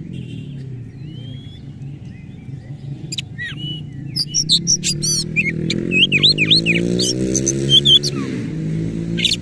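Oriental magpie-robin singing a fast, varied burst of sharp chirps, whistles and rasping notes, starting about three seconds in; these are the mimicked 'isian' phrases of a bird in full song. A low drone runs underneath and rises in pitch for a few seconds near the end.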